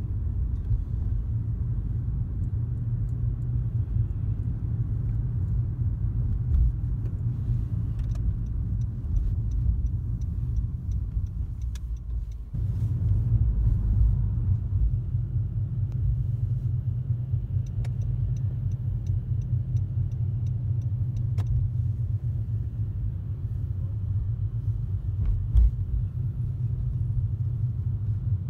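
Steady low rumble of a car's engine and tyres heard from inside the cabin while driving, with a brief drop about twelve seconds in. Faint quick ticking comes in twice.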